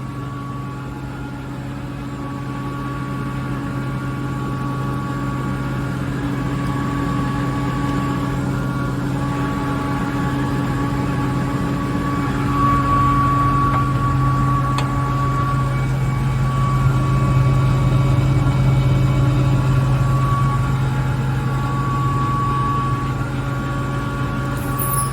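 KAESER SK25 rotary screw air compressor running loaded on its frequency-controlled drive, building pressure in the air receiver toward its 8-bar set point. It makes a steady low hum with higher steady tones over it and grows gradually louder.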